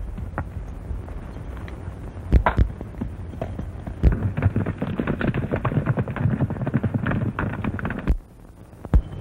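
A few sharp bangs, the loudest pair about two and a half seconds in, then a fast run of horse hoofbeats from about four seconds in that cuts off suddenly near eight seconds, over the steady hiss of an old film soundtrack.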